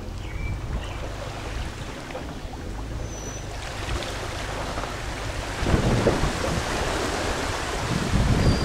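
Water sloshing and splashing off a boat trailer as it is pulled up the launch ramp out of the water, with low rumbling that grows louder about six seconds in.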